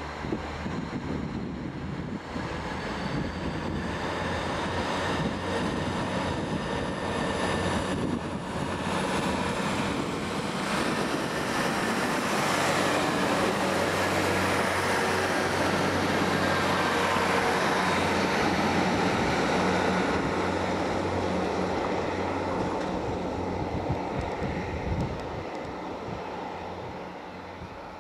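Northern Ireland Railways Class 3000 diesel multiple unit running past close by, its underfloor diesel engines humming and its wheels running on the rails. It grows louder to a peak about halfway through as the carriages go by, then fades as the train moves away.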